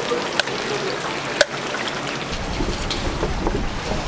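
Battered chicken frying in a deep fryer: the hot oil sizzles and bubbles steadily, with small pops and a sharp click of steel tongs about a second and a half in. A low rumble joins in after about two seconds.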